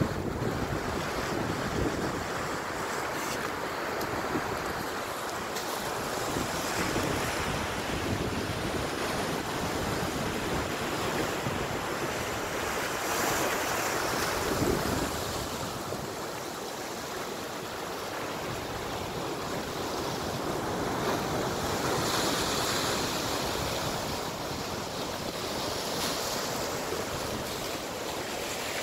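Surf washing over a rocky shore, a steady rush of breaking waves that swells and eases, with wind buffeting the microphone.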